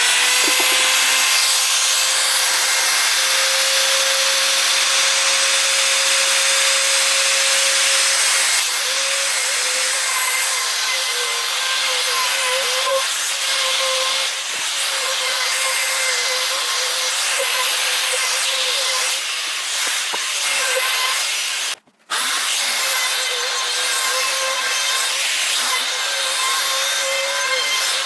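A high-speed handheld electric power tool working wood. Its motor whine runs steady at first, then wavers and dips as it bites into the wood. It cuts out briefly about 22 seconds in and starts again.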